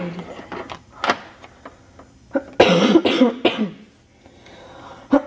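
A boy with a cold coughing several times, the hardest cough about two and a half seconds in.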